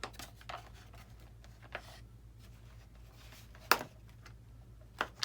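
Scattered light clicks and taps of hand tools and small parts being handled while screws are taken out of a foam RC model airplane, with one sharper knock about four seconds in and another near the end, over a faint steady hum.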